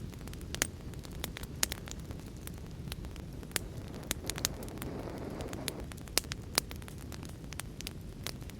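Wood fire crackling, with irregular sharp pops over a steady low rumble; a soft swell of hiss comes and goes about four to six seconds in.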